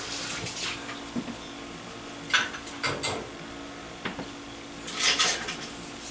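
Light, scattered clicks and clinks of small objects handled on a tabletop, with a brief rubbing or scraping noise near the end, over a steady low hum.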